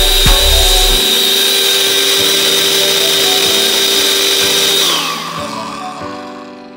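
Personal blender grinding dried moringa (malunggay) leaves into powder, its motor running steadily; about five seconds in it is switched off and the pitch falls as the blade spins down.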